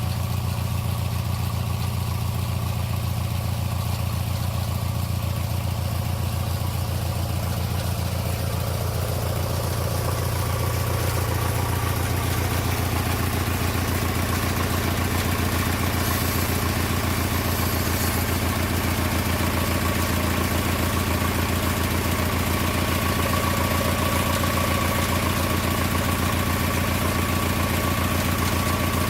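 Small lawn mower engine running steadily, driving a homemade sawmill. A higher rushing noise joins about ten seconds in and carries on.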